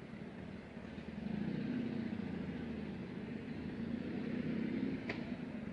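An engine's steady low hum, growing louder about a second in and holding, with a short click near the end.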